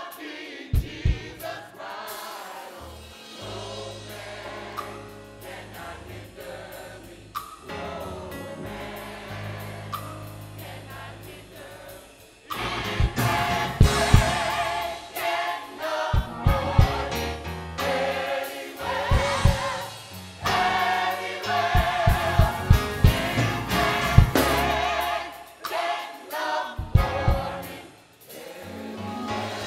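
Gospel choir singing with musical backing. It is softer at first, then fuller and louder from about halfway, with sharp beats.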